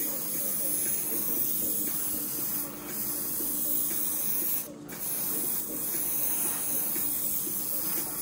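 Airbrush spraying paint: a steady hiss of air and paint, released briefly twice, about three and five seconds in, over a low steady hum.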